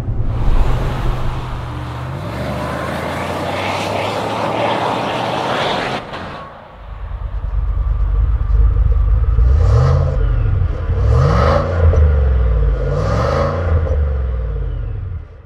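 Inside the cabin of a GMC Denali SUV at high speed: steady engine drone with tyre and wind rush. About six seconds in it cuts off, and an engine rumbles at idle and revs up and back down three times.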